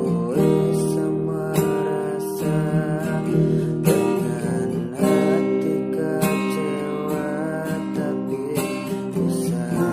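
Acoustic guitar strummed, playing chords with notes ringing between strokes.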